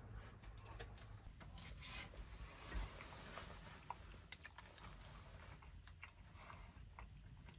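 Faint scattered clicks and taps over a low steady hum.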